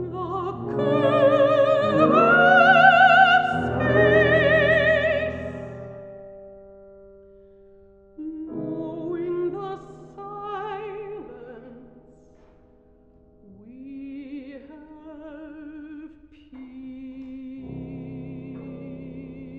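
Classical art song: a mezzo-soprano sings with wide vibrato over piano accompaniment. A loud opening phrase fades out, softer phrases follow, and it settles into quiet held notes near the end.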